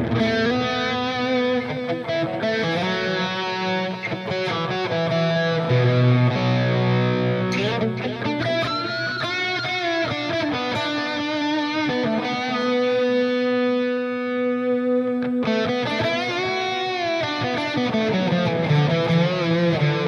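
Electric guitar played through a Headrush amp-modelling unit on a light crunch tone: chords and single-note lines with bends and vibrato, and one long held note near the middle.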